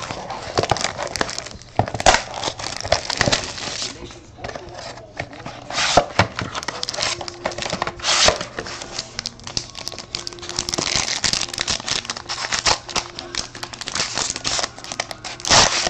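Plastic shrink-wrap on a sealed box of trading cards being cut and torn off, then the box opened and the wrapped pack inside lifted out: irregular crinkling and tearing of plastic, with scrapes and taps on cardboard.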